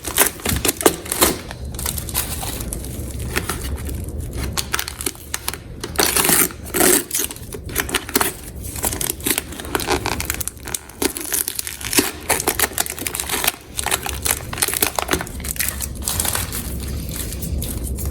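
Vinyl contact paper crinkling and rustling as it is handled, with a dense, irregular run of small crackles throughout.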